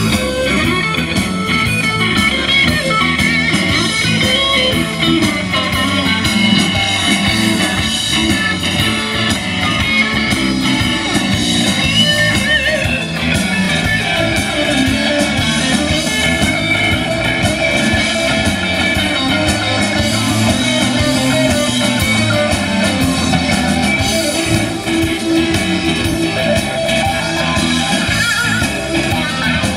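Live roots band playing an instrumental passage with no singing: electric guitars over electric bass and drums.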